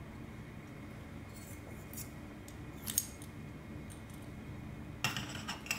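Thin titanium plates of an EVERNEW cross-shaped pot stand clicking against each other as they are handled and slotted together: a few light clicks, then a quick cluster of clinks near the end.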